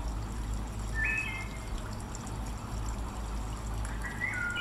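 Steady trickle of running water, with two short bird calls of clear whistled notes that step in pitch, about a second in and again near the end.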